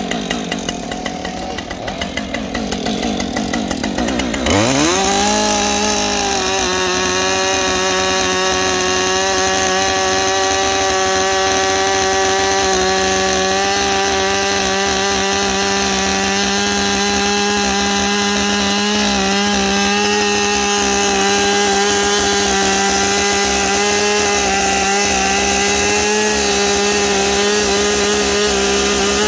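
Husqvarna 545 auto-tune two-stroke chainsaw revving up about four seconds in and then holding a steady high pitch at full throttle under load, ripping lengthwise through a log. This sustained full-throttle load is what the auto-tune system needs to enter tuning mode and adjust the fuel mixture.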